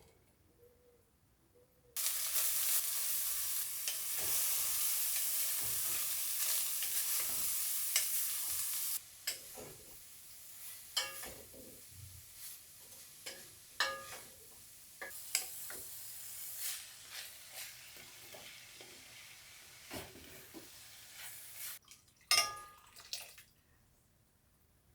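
Food frying in hot fat in a pan: a loud sizzle starts suddenly about two seconds in, settles to a quieter sizzle after several seconds, and stops near the end. A spoon or spatula stirs the pan throughout the quieter part, with scattered knocks against the pan.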